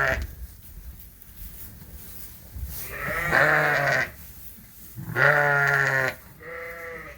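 Dorset sheep in a barn bleating: one long bleat about three seconds in, then two more close together near the end.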